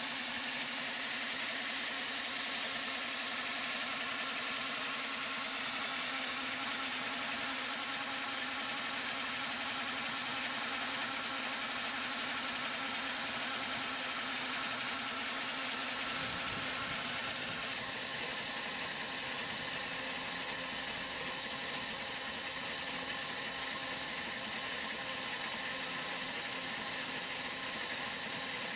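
Large powered saw running steadily through a big log, an even mechanical hum and hiss that shifts slightly in tone about 17 seconds in.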